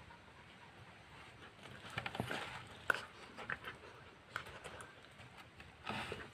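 Two young dogs play-fighting on a dirt floor: scuffling paws and mouthing, with scattered sharp clicks and brief louder bursts about two seconds in and again near the end.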